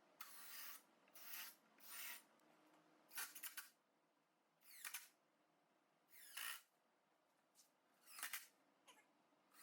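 A cat meowing over and over: about eight short calls, each under half a second, spaced a second or so apart.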